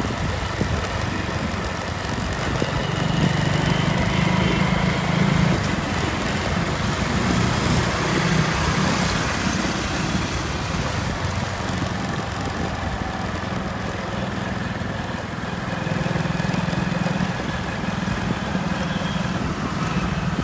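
Street traffic: vehicle engines running and passing, with a steady wash of road noise that swells and fades over several seconds.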